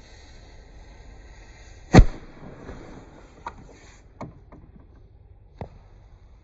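A single loud firework bang about two seconds in, followed by a few fainter, separate cracks, over a steady hiss that cuts off about four seconds in.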